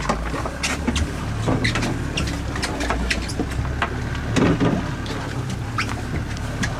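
Boat engine idling as a steady low hum, with scattered knocks, splashes and handling clatter over it and one louder thump about four and a half seconds in.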